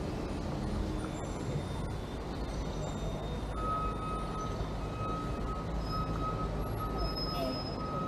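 City street traffic: a steady low rumble of passing vehicles, with a thin steady high whine joining about three and a half seconds in.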